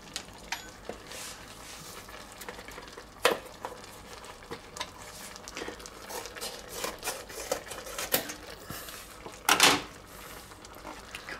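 Kitchen scissors snipping open a sauce packet, with the packet crinkling and scattered small clicks and knocks. Near the end comes a louder clatter as the scissors are put down on the worktop.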